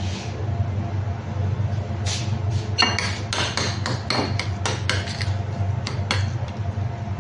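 Metal spoon clinking and scraping against a glass mixing bowl while stirring a soft herb-butter paste: a run of quick, irregular clinks from about two seconds in until about six seconds in. A steady low hum runs underneath.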